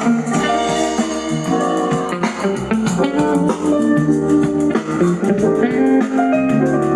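Music with a guitar melody over a bass line, played loud through an amplifier and speakers for a sound check. The bass comes in about half a second in.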